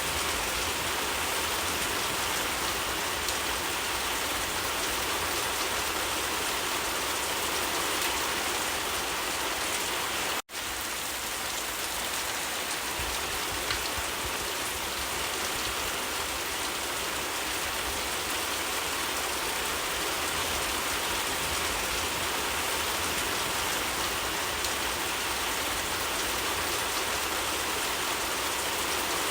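Steady, even rain falling on leaves, with no single drops standing out. The sound cuts out for an instant about ten seconds in, then carries on unchanged.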